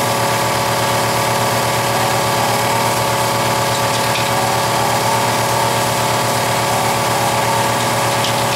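A steady machine hum that holds at one level, with a faint stepping tone above it.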